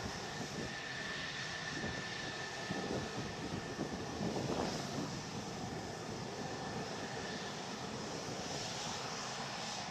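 F-16 fighter jet engines running on the ground: a steady rushing noise with a thin high whine over it for most of the time.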